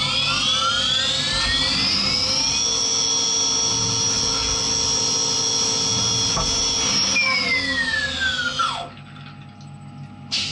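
CNC vertical machining centre spindle, a Skyfire SVM-1, spinning up with a rising whine over the first few seconds, holding a steady high whine while the tool cuts the part, then winding down with a falling whine about seven seconds in.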